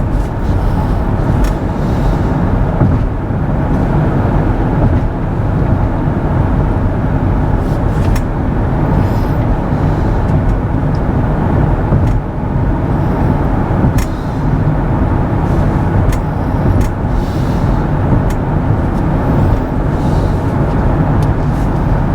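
Road and tyre noise inside the cabin of a moving Kia EV6 electric car: a steady low rumble with no engine note, with a few faint ticks.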